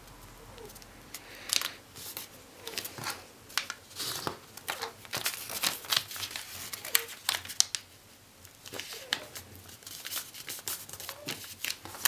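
A sheet of origami paper being handled, folded and creased by hand: a run of crisp rustles and crinkles, with a short lull about eight seconds in.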